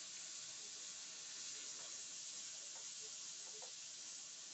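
Slices of hickory-smoked ham frying in a nonstick skillet, a faint steady sizzle, with a few faint ticks near the middle.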